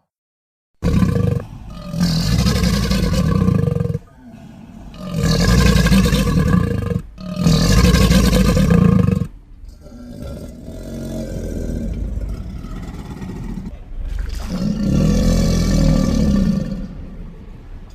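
Deep roars and growls of a giant monster crocodile, made as film sound effects. The first roar starts suddenly about a second in, and several long roars of two or so seconds each follow with short gaps between them. A quieter, longer growl comes in the middle, then one more loud roar.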